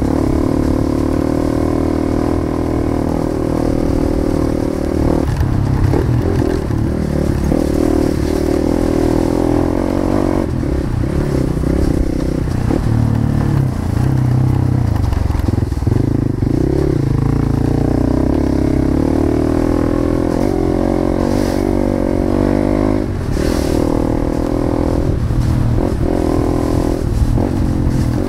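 Motorcycle engine running while riding, its note rising and falling with the throttle.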